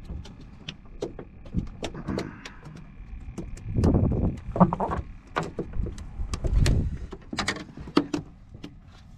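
Clicks, knocks and scuffing of tackle being handled on a fiberglass boat deck, with two louder bouts of rubbing and thumping about four and seven seconds in.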